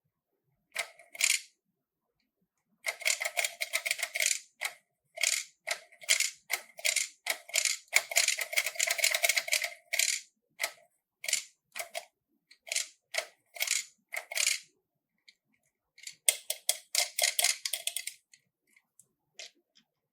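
Slime being squeezed and worked by hand, giving runs of sharp crackling, popping clicks with short silent gaps between them.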